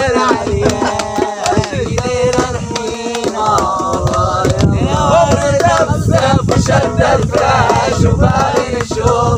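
Young men singing a chant-like song and clapping along. The singing holds long notes at first, and the clapping rhythm comes in strongly about three and a half seconds in.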